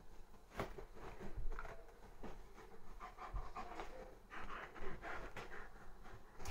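Borzoi panting as it noses and paws at a futon comforter, with the fabric rustling in short irregular strokes; the breathing is plainest from about halfway through.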